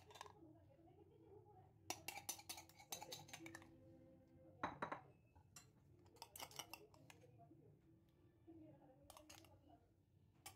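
A metal spoon clinking and scraping against a glass bowl and a metal pan while milk pudding mixture is spooned and poured, in several short clusters of clinks.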